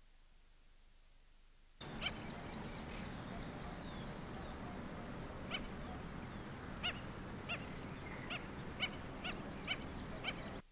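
After near silence, a steady rushing outdoor ambience cuts in about two seconds in, with wading birds calling: a few falling whistles, then sharp yapping notes repeated every half second to a second. The calls fit the white-backed stilts wading in the shallows.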